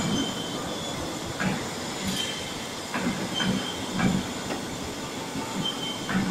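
Electrically driven gantry material-handling machine working its grab: a steady mechanical whir with several irregular metal clunks and rattles, and a thin high tone that comes and goes.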